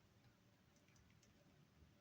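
Near silence: faint room tone with a few very faint small ticks.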